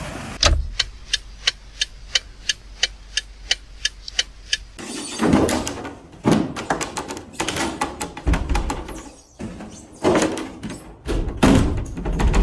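A run of evenly spaced sharp clicks, about four a second for about four seconds over a low hum, then irregular heavier knocks and thumps.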